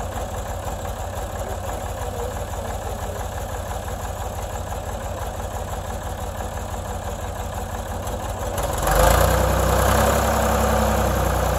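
Ford backhoe loader's engine idling steadily. About nine seconds in, it speeds up and runs noticeably louder.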